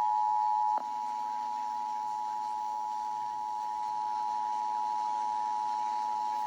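Emergency Alert System attention signal: a steady two-note electronic tone held without a break. A click sounds about a second in, after which the tone is slightly quieter and a faint low hum sits under it.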